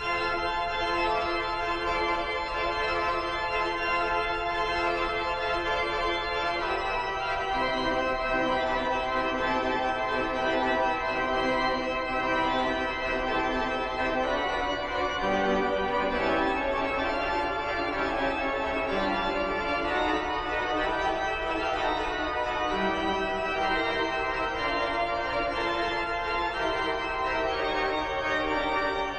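Church organ playing a slow prelude of sustained chords, with deeper bass notes joining from about halfway through.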